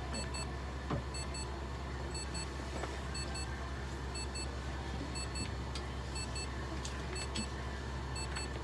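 Light-therapy unit beeping while it runs, a quick double beep about once a second, over a steady low hum.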